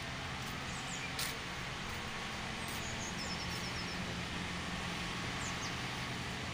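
Steady outdoor background hum with a low drone, like distant traffic, with a few faint high chirps of small birds, including a quick run of chirps about halfway through.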